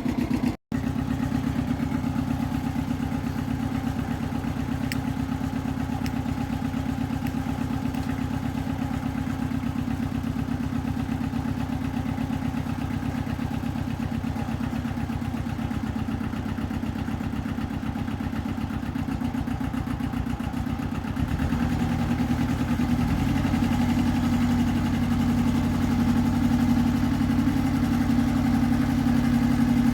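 Iseki TX1300 compact tractor's diesel engine running steadily. It cuts out for an instant just after the start, and about two-thirds of the way through the engine note changes and gets a little louder.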